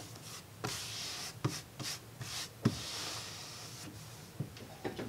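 Light rubbing and brushing noises broken by several soft knocks, the sharpest about two and a half seconds in.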